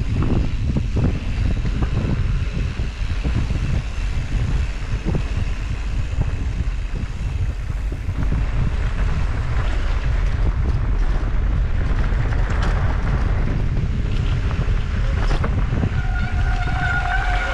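Wind buffeting the microphone of a mountain bike on the move, over the crunch of tyres on a dirt trail and the rattle of the bike over bumps. A steady high whine joins near the end.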